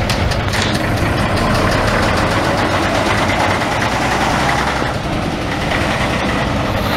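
Vintage military off-road vehicle's engine running as it drives slowly past and pulls away, easing off slightly about five seconds in.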